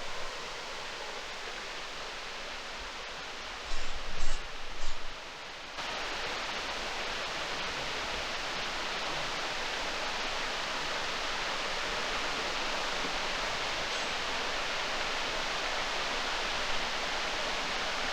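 Steady rush of a waterfall, an even hiss of falling water that steps up abruptly louder about six seconds in and then holds steady. A few brief loud bumps come around four to five seconds in.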